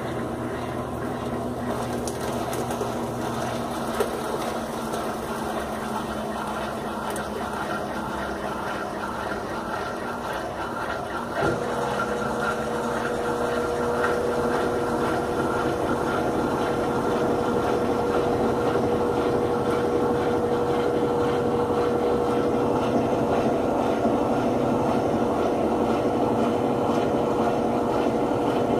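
Top-loading washing machine running with a steady mechanical hum. About a third of the way in there is a small knock, a new steady hum comes in and the running gets a little louder, as the machine changes what it is doing.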